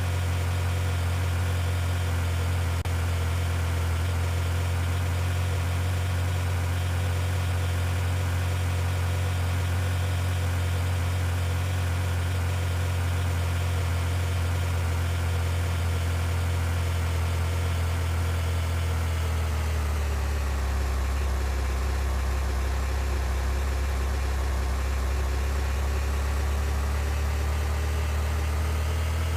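Vehicle engine running steadily with a low hum. Its pitch drops about twenty seconds in, then slowly climbs again near the end.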